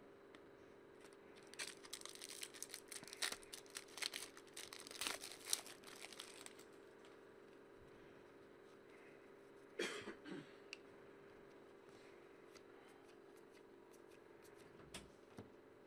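Trading cards being handled and flipped through: a few seconds of quick rustling and snapping clicks as cards slide off the stack, then quieter handling. A brief throat sound, like a short cough, about ten seconds in.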